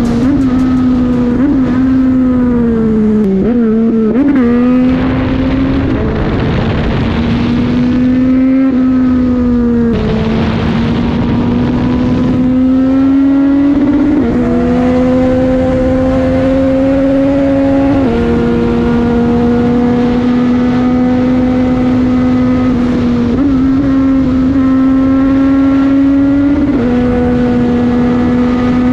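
Yamaha MT-09's three-cylinder engine pulling at high, near-steady revs at speed, its pitch wavering with throttle changes a few seconds in and then dropping sharply several times as it shifts up. Bursts of rushing noise come and go in the first half.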